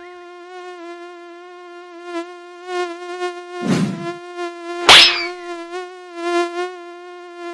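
Cartoon mosquito buzzing sound effect: a steady, slightly wavering high whine. About halfway through comes a short whoosh, then a loud sharp slap as a hand swats at the mosquito and lands on the man's own cheek.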